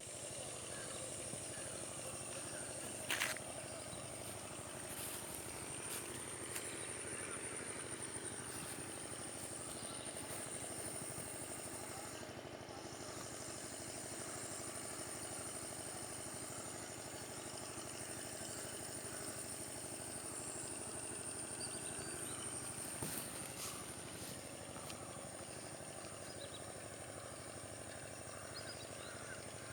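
A steady engine-like hum outdoors, with a steady high whine above it and a single sharp knock about three seconds in.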